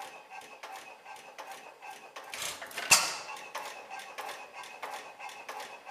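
6 HP Seager Olds flywheel engine running on its first run, a steady clicking of about three a second as it turns over, with one loud sharp bang about three seconds in as it fires.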